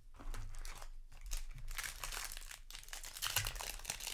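Foil Magic: The Gathering set booster wrapper crinkling and being torn open, a dense plastic crackle that gets heavier about a second and a half in.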